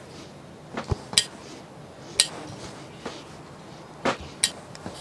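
A clothes iron knocking and clicking against the ironing board about five times, sharp separate knocks, while a sleeve hem is pressed.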